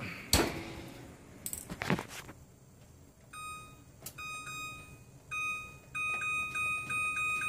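A couple of loud metallic clanks as the oven rack and door are shut, then a series of short electronic beeps from the oven's control panel as its timer buttons are pressed, coming faster near the end.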